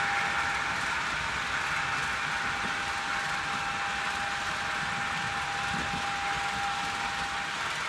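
Model railway freight wagons rolling past close by: a steady rush of small metal wheels running on the rails, with a thin steady whine throughout.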